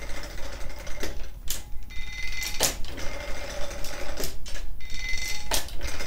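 Cast-iron setworks of an antique Frick sawmill carriage being worked by its hand lever: sharp metal clanks and ratchet clicks, about six spaced unevenly, as each pull advances the head blocks 1¾ inch.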